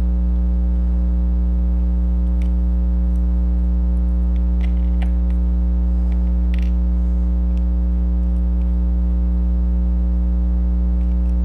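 Loud, steady electrical mains hum with a stack of overtones. Faint small clicks and taps come now and then from fingers working the tiny screws and parts of a small circuit-board stack.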